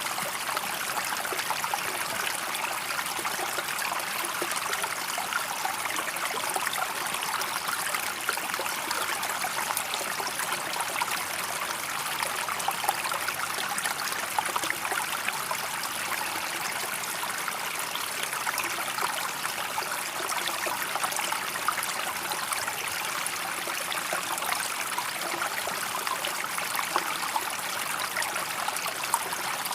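Water running steadily, an unbroken rushing with fine splashing crackle.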